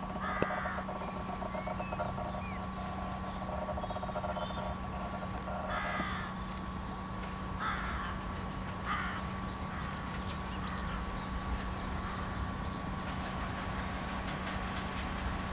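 Bird calls, four short harsh calls: one just after the start, then three between about six and nine seconds, over a faint low background rumble.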